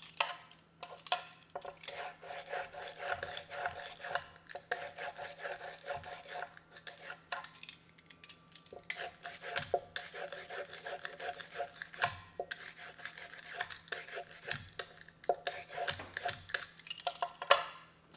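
Carrots being peeled with a vegetable peeler: quick, repeated scraping strokes with a short pause about halfway through.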